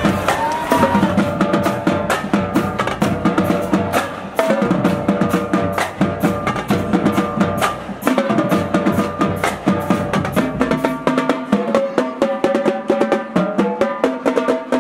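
Background music with a steady, busy drum beat of snare and bass drum hits over sustained pitched tones; the deepest bass drops out about eleven seconds in.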